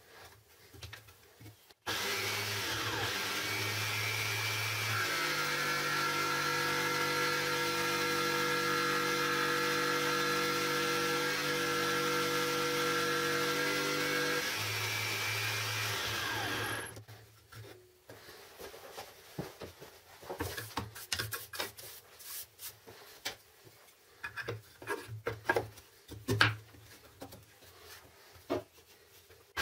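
Table saw switched on about two seconds in, running steadily with a strong hum while a strip of wood is fed through the blade, then switched off and winding down about seventeen seconds in. After that come scattered sharp clicks and knocks of wooden pieces being handled on the saw table.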